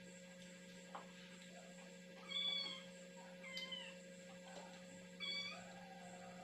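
A cat meowing three times: short, high-pitched meows about a second or so apart, over a faint steady hum.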